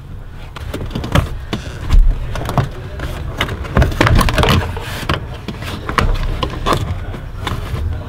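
Plastic interior side trim panel of a 2004 Mustang GT being pulled back by hand, giving a run of irregular clicks, creaks and knocks, with a heavier thump about two seconds in.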